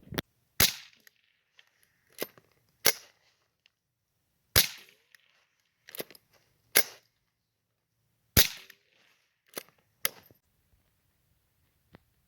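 A string of about ten low-powered rifle shots, some in quick pairs, each a sharp crack with a short echoing tail.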